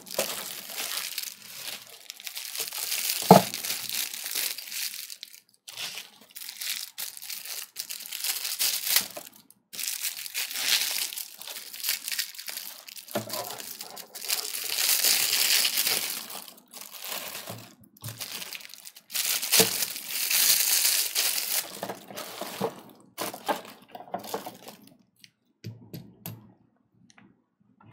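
Plastic packaging, bubble wrap and film, crinkling and rustling as it is handled and pulled away, in several long bouts. A few light knocks come near the end.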